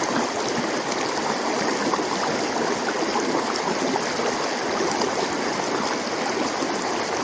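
Stream water running and splashing over rocks close by, a steady gurgling rush.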